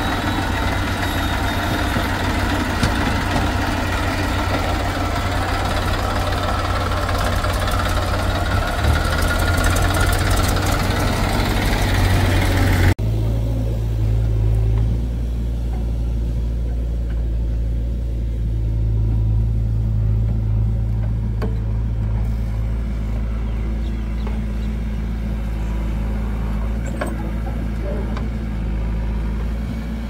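Heavy diesel engines of a backhoe loader and tractors running steadily. About a third of the way through, the sound cuts suddenly to a deeper, steadier engine rumble with much less high-pitched noise.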